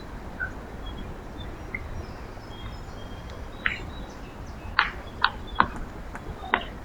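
Backyard birds calling with scattered short chirps, then a quick run of sharp chip notes about four to six seconds in, over a steady low background rumble.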